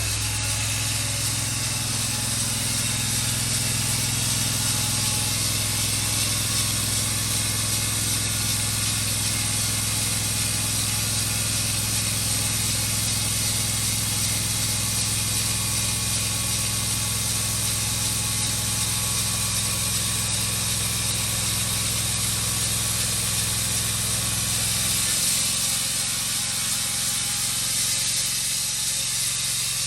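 Large band sawmill cutting a log: its engine drones steadily under the hiss of the band blade running through the wood. About 25 seconds in, the engine's low note drops and changes.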